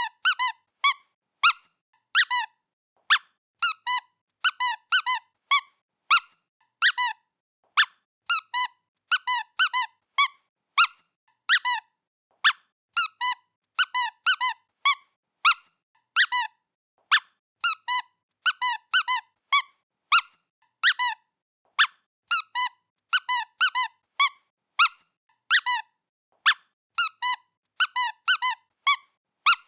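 A squeaky toy being squeezed over and over by a playing cat: short, high squeaks in an irregular run of about two a second, some in quick pairs.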